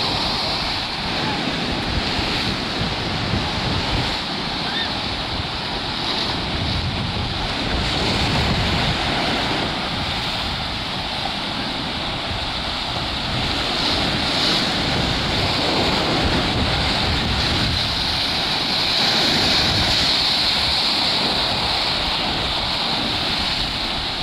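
Stormy sea surf breaking on the shore in a continuous rush that swells and eases, with wind buffeting the microphone.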